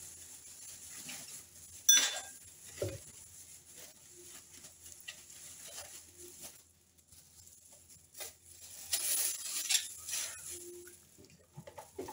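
Hands tearing sticky Medjool dates open to pull out the seeds, with small scrapes and clicks and light knocks as dates drop into a plastic blender jar. A sharp click comes about two seconds in, and a denser run of scraping follows later.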